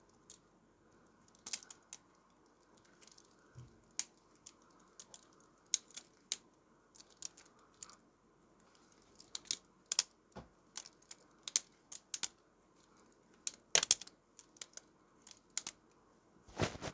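Butterfly knife being flipped: irregular clicks and clacks as the handles swing and strike each other, with a couple of louder clacks near the end.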